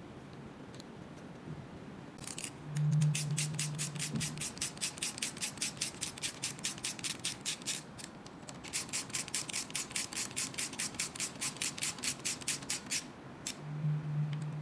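A hand ratcheting hex driver clicking steadily, about five clicks a second, as it turns the bolts of a motorcycle steering-damper bracket. There are two runs of clicking with a short pause between them. A low hum comes in briefly twice.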